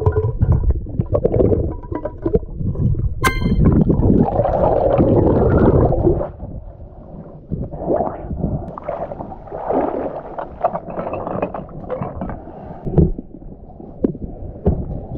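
Muffled underwater rumbling and bubbling picked up by a snorkeller's action camera, with a sharp ringing ping about three seconds in. After about six seconds it turns quieter, with choppier water-splashing noises.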